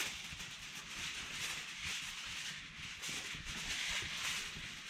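Aluminum foil crinkling and rustling as it is handled and wrapped around stakes, a crackly hiss that swells and fades every second or so.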